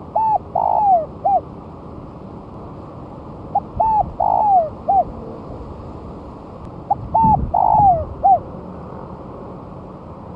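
Spotted dove (tekukur) cooing: three matching phrases about three and a half seconds apart, each a run of about four rounded coo notes with a longer, louder one near the end, over a steady hiss.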